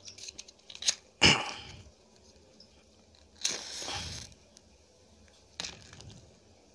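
A couple of sharp clicks about a second in, then a soft rush lasting under a second as paint thinner poured on a wet gloved hand catches fire and burns.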